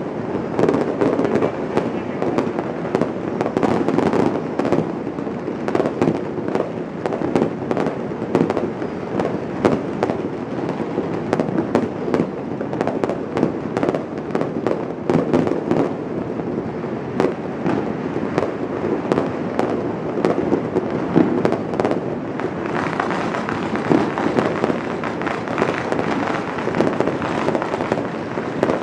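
Dense, unbroken barrage of fireworks and firecrackers going off all around, a steady crackle of rapid pops that turns crisper about two-thirds of the way through.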